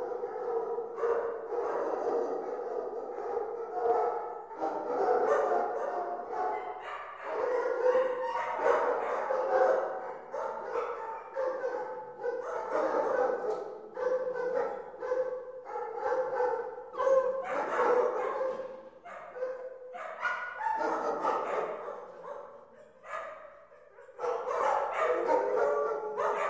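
Many dogs in a dog pound barking, yelping and whining at once, their calls overlapping without pause, with a brief lull about three-quarters of the way through.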